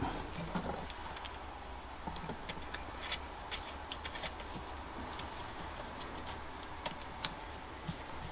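Faint, scattered small clicks and taps of fingers handling a P4 model railway turnout kit, its plastic sleeper base and steel rails knocking lightly as the parts are pressed and settled, over a low steady hum. The sharpest click comes about seven seconds in.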